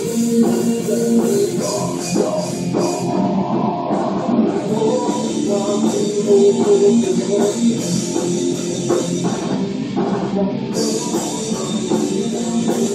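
A rock band playing at a rehearsal: electric guitar over a drum kit.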